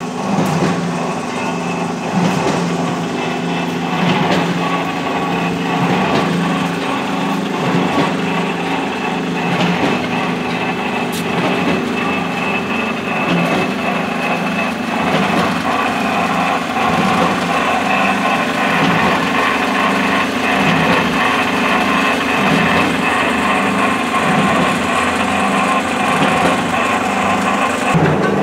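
A 250 kg pan mixer running, its electric motor and belt drive turning the mixing blades in the steel pan. A steady machine hum with a regular pulse about once a second.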